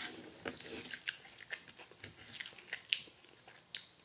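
Eating pancakes at a table: a knife and fork clicking and scraping on a plate, with chewing. The clicks are irregular and quiet, with a couple of sharper ones about three seconds in and shortly before the end.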